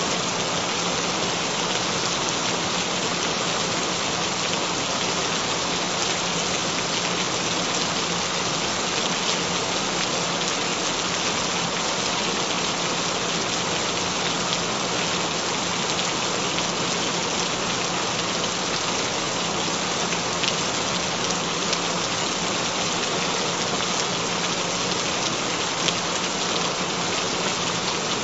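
Steady rain falling on a surface, with scattered sharper drop ticks and a faint steady low tone underneath.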